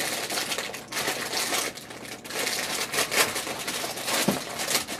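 Crinkling and rustling as a cereal box is opened by hand: the plastic liner bag inside crackles while the cardboard top flaps are pulled apart, in uneven bursts.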